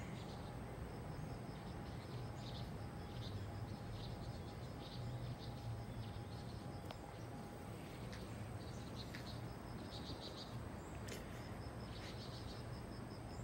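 Quiet outdoor ambience: faint high-pitched chirps in short, evenly spaced runs that come and go, over a steady low hum.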